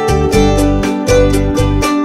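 Background music: an upbeat tune on plucked strings, like an acoustic guitar, strummed in a steady rhythm of about four strokes a second over a bass line.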